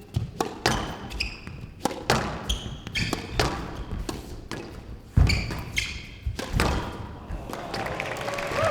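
Squash rally: the ball cracking off rackets and thudding against the court walls in quick succession, about every half second, with short shoe squeaks on the court floor between hits. Applause starts near the end as the rally finishes.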